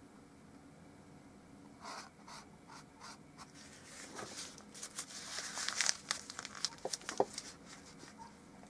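Quiet, irregular scraping, rustling and crinkling from oil-painting tools off the canvas as paint is mixed on the palette. It thickens into a busier run of scratchy strokes and small clicks in the second half, with a couple of sharper ticks near the end.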